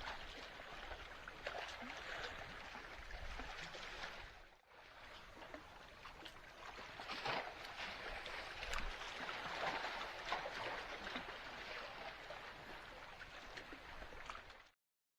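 Sea water lapping and sloshing against the shore, a steady wash with scattered crackles, dropping out briefly about four and a half seconds in and cutting off just before the end.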